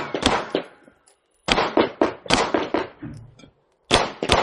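Beretta 92G 9mm pistol firing fast strings of shots, each string a quick run of sharp reports, with short pauses between strings.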